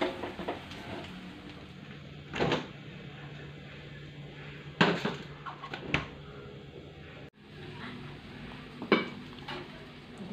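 Kitchen clatter: four separate knocks of pots, pans and a cupboard door, a couple of seconds apart, over a faint steady background.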